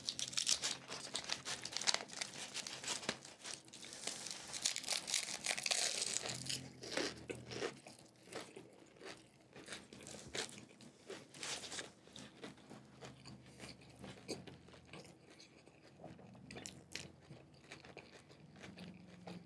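A person biting and chewing crunchy food, with frequent crunches in the first several seconds, then quieter, sparser chewing.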